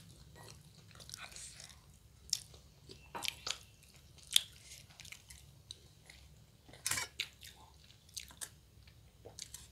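People chewing sattu puri and baingan chokha, eaten with the fingers off steel plates. A scattering of short sharp clicks and taps runs through it, the sharpest about four seconds in.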